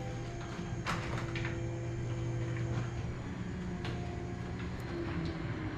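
LiftMaster 3500 garage door opener running, its motor humming steadily as it moves the door, with a few light clicks and rattles from the door. It runs smoothly.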